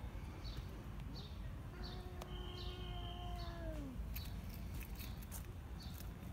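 A cat gives one long meow lasting about two seconds, its pitch dropping at the end. Faint high chirps repeat about every 0.7 s in the background.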